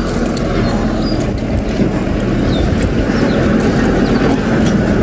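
Wind buffeting the phone's microphone: a steady, loud, irregular low rumble, with a few faint high bird chirps.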